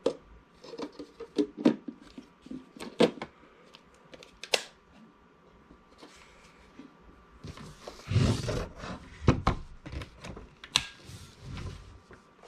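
Plastic clicks, knocks and rustling as the parts of a cordless stick vacuum (dust cup, filter housing) are handled and fitted together. There are scattered sharp clicks at first, then a rougher stretch of rustling and knocks in the second half.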